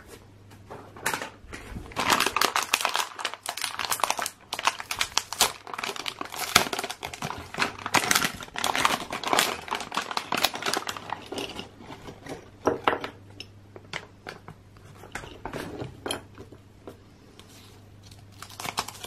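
Crinkling of a plastic Playmobil Figures blind-bag packet squeezed and opened by hand, dense for the first dozen seconds, then lighter, sparser rustling.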